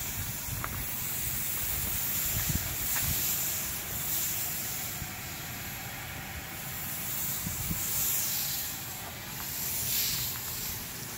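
Low-pressure softwash spray hissing steadily from a hose nozzle as the chemical mix is applied to a stucco wall, swelling and easing a little as the spray moves.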